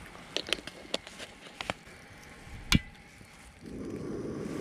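A few light clicks and knocks of handling, then one sharp click from the portable gas stove's igniter near the middle, and about a second later the burner lights with a steady low flame roar, starting the heat under a mess tin of rice.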